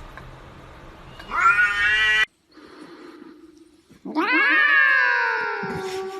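Domestic cats meowing: a short meow about a second in that is cut off abruptly, then a long, drawn-out meow from about four seconds in that slowly falls in pitch.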